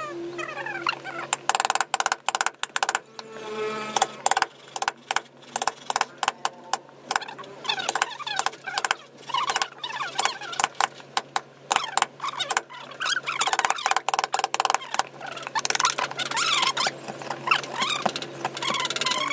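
Carving chisel and gouge cut by hand into softwood, giving a quick, irregular series of crisp cracks and snaps as shavings split away. High wavering squeaks come and go between the cuts.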